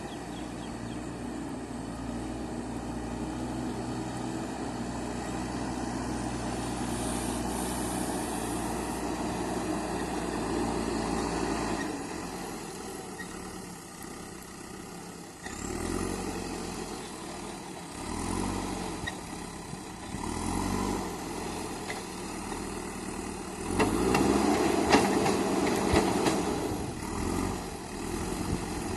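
JCB 3DX backhoe loader's diesel engine running steadily, then rising and falling in repeated surges from about halfway through as the machine works. There are louder knocks and clatter in the last few seconds.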